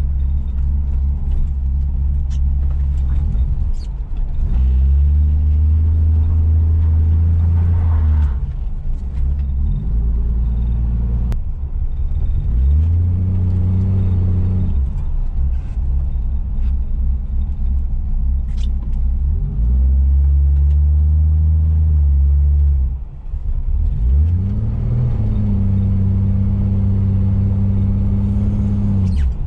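1975 Plymouth Duster's slant-six engine heard from inside the cabin, running under throttle and revving up four times, each rise in pitch held for a few seconds before falling back.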